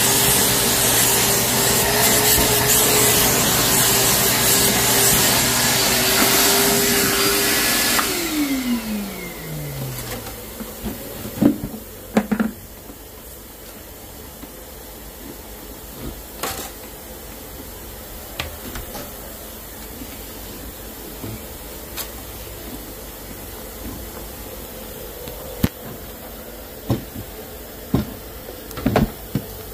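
Wet/dry shop vacuum running steadily, then switched off about eight seconds in, its motor winding down in a falling whine over about two seconds. After that, a few scattered knocks and clicks.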